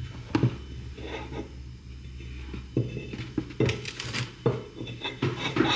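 Kitchen clatter of glassware and utensils: a string of separate clinks and knocks, coming closer together in the second half.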